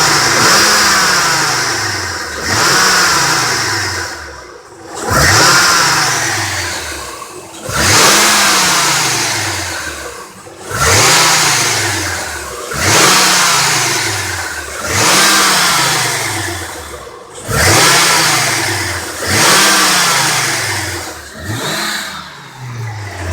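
2003 Honda Accord 3.0-litre V6 revved hard about ten times, each rev rising quickly and dying away slowly, with a bright metallic ringing rattle over each rev. The owner likens the rattle to an old alarm-clock bell and suspects a loose piece rattling inside the exhaust: broken catalytic-converter honeycomb or the flex pipe's inner lining.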